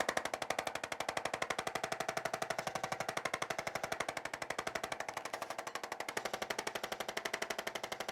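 Rapid, even mechanical tapping, about ten to twelve strikes a second, from a handheld chiropractic percussion instrument.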